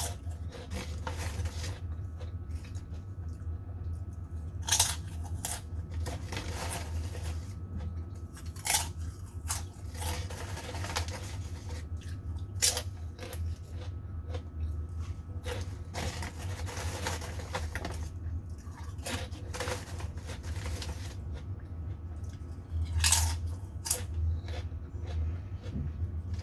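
Close-up crunching and chewing of a crisp potato snack, with a few sharp, loud bites spread through it and softer chewing in between. A steady low hum sits underneath.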